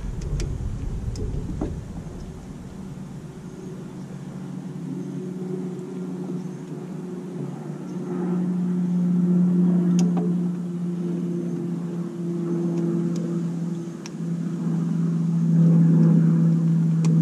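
Steady low mechanical hum with an overtone, swelling louder about halfway through and again near the end, with a few light clicks from the washer pump's wiring connector being handled.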